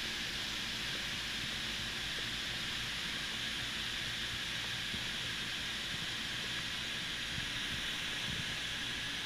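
Garden hose nozzle on its mist setting, spraying a fine mist with a steady hiss.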